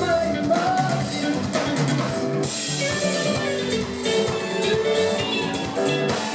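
Live afro-soul band playing an instrumental passage: drum kit keeping a steady beat under bass and ringing melodic lines, with a cymbal crash about two and a half seconds in that carries on as a bright wash.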